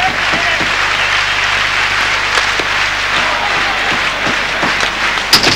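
Arena crowd cheering and applauding steadily during an ice hockey game, with a few sharp knocks from play on the ice, the loudest near the end.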